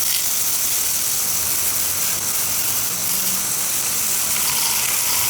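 Steady, loud hiss of a water spray jet washing a clogged sump pump clean.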